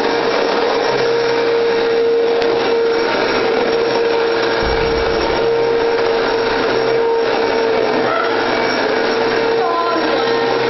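Vacuum cleaner running steadily, its motor giving a constant whine over a rush of air.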